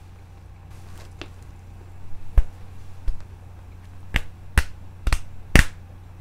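Sharp hand slaps: one, then four in quick succession about half a second apart with the last the loudest, as fists pump through a rock-paper-scissors count before the throw. A steady low hum runs underneath.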